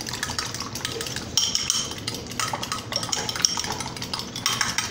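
Beaten eggs and seasonings being whisked by hand in a small glass bowl: a quick, uneven run of clinks as the utensil strikes the glass, with the wet egg stirring.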